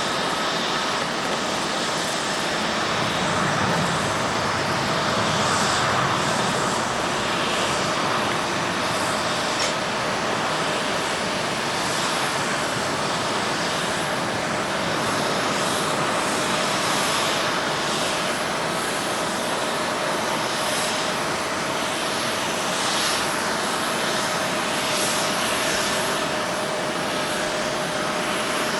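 Jet airliner engines running: a steady, even rush of engine noise with a faint steady whine, swelling slightly a few seconds in.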